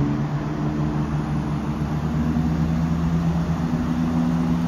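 Class 170 Turbostar diesel multiple unit pulling away under power, its underfloor diesel engines making a steady drone that rises slightly in pitch as it gathers speed.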